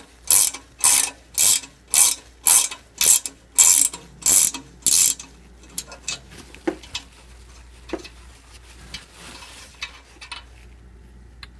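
Hand ratchet clicking in about ten even strokes, roughly two a second, as it backs a thread chaser out of the exhaust flange's threaded stud hole. The clicking stops about five seconds in, leaving a couple of faint taps.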